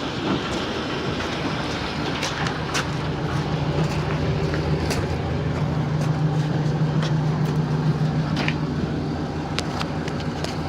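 An engine running steadily, its hum swelling a little midway, with scattered sharp metal clicks and clanks.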